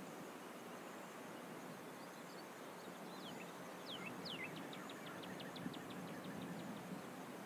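Faint outdoor background noise with a songbird calling: a few falling whistles about three to four seconds in, then a quick, even run of short notes.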